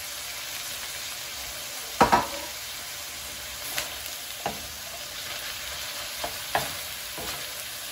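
Mutton mince and chopped onions sizzling in oil on a tawa, stirred, with the stirring utensil knocking against the tawa a few times; the loudest knock comes about two seconds in.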